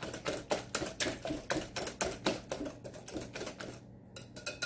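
Wire balloon whisk beating thin pie batter in a glass mixing bowl, its wires clicking against the bowl about five times a second. The clicking stops briefly near the end as the whisk is lifted out, then starts again more softly.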